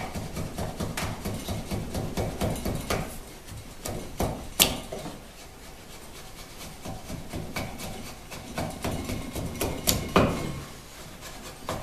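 Wide chisel pushed by hand along a wooden tenon cheek, paring off shavings: repeated scraping strokes with many small clicks, and two sharper clicks about four and a half and ten seconds in.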